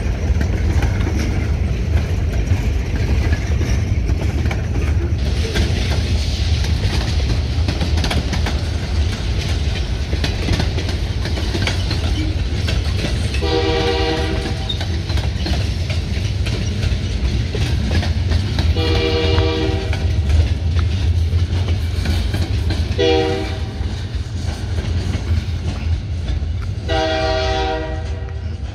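Freight cars rolling past with a steady wheel rumble and rapid clickety-clack over the rail joints. Partway through, the locomotive's air horn sounds four blasts, long, long, short, long: the grade-crossing signal. The rolling eases slightly near the end as the last car goes by.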